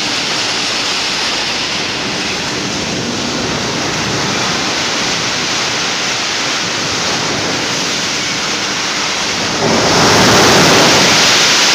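Imported scrap metal sliding and pouring out of a steeply tipped shipping container onto a pile, a loud continuous rushing noise that gets louder near the end as more of the load comes down.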